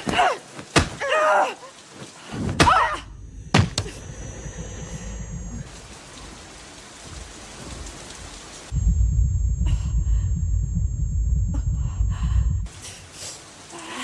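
Fight sounds: women's strained cries and grunts with sharp punch thuds in the first few seconds, then a loud, low rumbling for about four seconds near the end.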